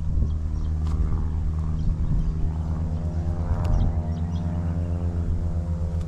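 Light propeller aircraft's piston engine droning steadily at an unchanging pitch, a low layered hum.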